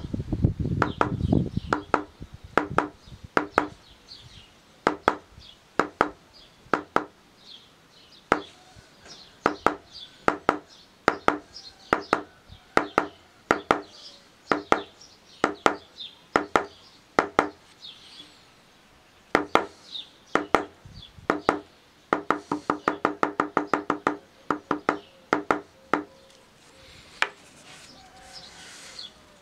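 Mallet striking a leather stamping tool pressed into leather, in sharp knocks mostly one or two a second. About two-thirds of the way through there is a quicker run of light taps, about six a second.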